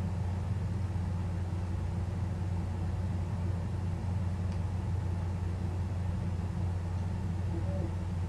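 A steady low rumble, with a couple of faint ticks midway and near the end.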